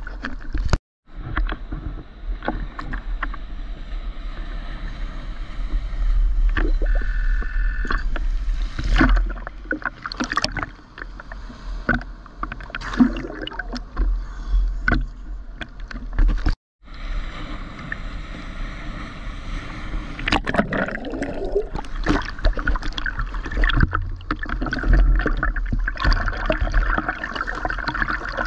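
Sea water sloshing and splashing against a GoPro's waterproof housing held at the surface, with a constant low rumble and irregular sharp splashes. The sound cuts out briefly twice, once about a second in and once past the middle.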